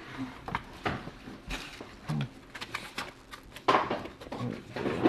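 A hand tossing fish chunks in a plastic bowl of egg and cornmeal to bread them: irregular soft pats, clicks and scuffles, with a louder scuffle a little past the middle.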